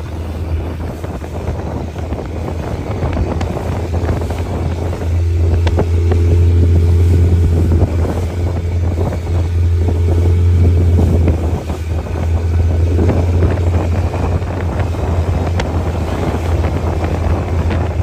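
Motorboat engine running steadily underway, a loud low hum that swells for several seconds in the middle and dips briefly before carrying on, with wind on the microphone.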